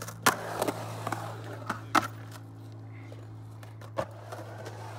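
Skateboard dropping into a concrete bowl and carving, its wheels rolling on the concrete. Sharp clacks come just after the start and again about two seconds in, with a lighter knock near four seconds.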